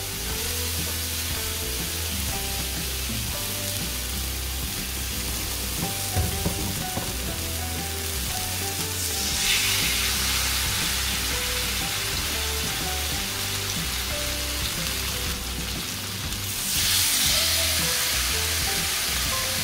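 Peri-peri-coated pomfret pieces sizzling as they fry in butter in a frying pan, a steady hiss that gets louder about halfway through and again near the end as more pieces go into the pan.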